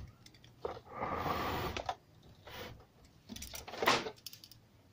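Handling noises from the amplifier's input-jack circuit board being worked on: a scraping rustle about a second long starting about a second in, then a cluster of sharp clicks and knocks around four seconds in.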